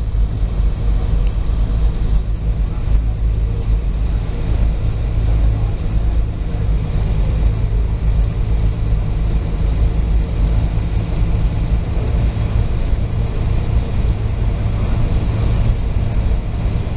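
Steady low rumble of a ferry under way, running evenly without a break.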